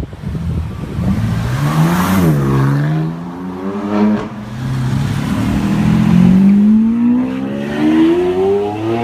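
A BMW M4's twin-turbo straight-six accelerates hard, its revs climbing, dropping with an upshift about two seconds in, then climbing again. Then a Lamborghini Aventador's V12 accelerates away, its revs rising through the gears.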